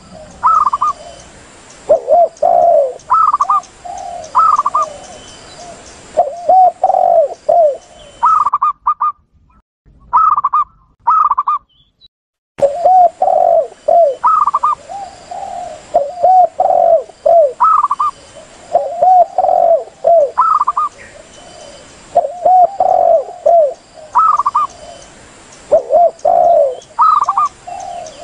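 Spotted doves and zebra doves calling in a looped lure recording. The spotted dove's low cooing phrases alternate with the zebra dove's higher, shorter coos every two to three seconds. About nine seconds in, the background hiss and the low coos drop out for a few seconds while only the higher coos continue.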